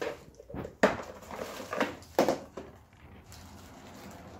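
A plastic toolbox being lifted and handled, giving a few sharp knocks and clatters, the loudest just under a second in, with its loose contents rattling.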